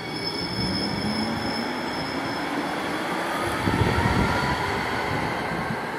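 A New Jersey Transit Hudson-Bergen Light Rail car pulling away along the track with a steady rumble of wheels on rail. Its motor whine rises slowly in pitch as it picks up speed, and the rumble swells about two-thirds of the way through.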